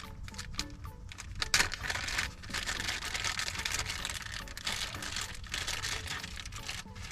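Small plastic shifter-knob parts being handled: scattered clicks, then a dense stretch of crackling and rustling from about a second and a half in.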